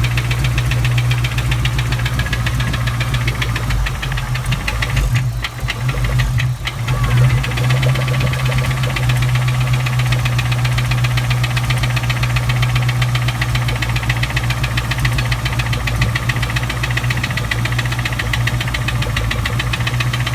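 A 1997 Ford Mustang Cobra's 4.6-litre DOHC V8 running with a fast, steady ticking knock over the engine note, which the owner can't place between rod knock, a valvetrain tick from the head, or a spun bearing. The level briefly dips and swells about six seconds in.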